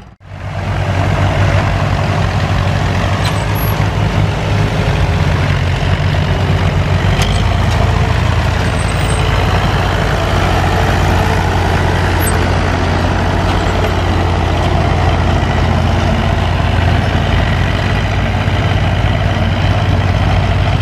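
A tractor engine running steadily, a low even drone that cuts in after a brief dip at the very start.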